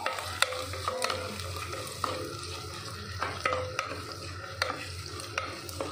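Sliced onions and green chillies sizzling in hot oil and ghee in a clay pot. A wooden spoon stirs them, scraping and knocking against the pot at irregular moments.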